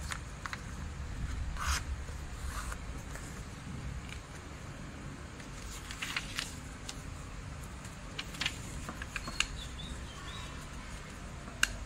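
A sheet of origami paper rustling and crinkling in short, scattered bursts as it is handled, unfolded and creased flat on a wooden tabletop, with a low steady hum underneath.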